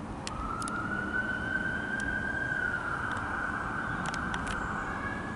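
A steady high whine of jet airliner engines overhead, starting about a third of a second in and holding nearly level, over a low rumble, with a few sharp clicks near the end.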